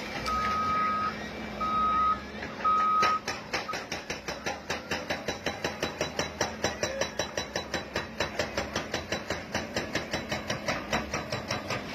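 Heavy machinery's reversing alarm beeping three times, followed by a diesel engine running with a fast, regular clatter of about five ticks a second.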